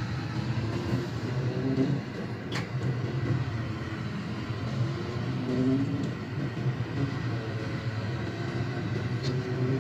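Bosch SMS30E02TR dishwasher running on its Eco programme: a steady low rumble with short, wavering farting noises now and then.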